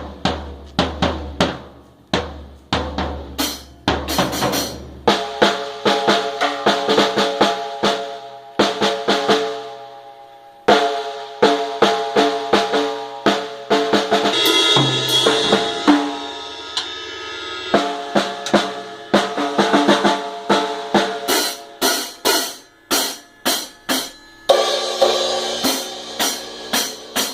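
Small child playing a drum kit: uneven drum hits and cymbal strikes that ring on, with sustained pitched tones under the hits.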